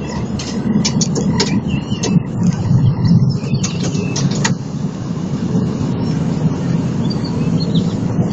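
Steady low engine rumble of a CityCat catamaran ferry under way, with scattered sharp clicks and rattles in the first few seconds.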